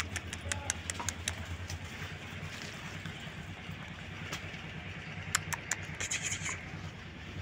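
A steady low, pulsing hum like an engine idling, with scattered sharp clicks and scratches in the first second or two and again near the middle.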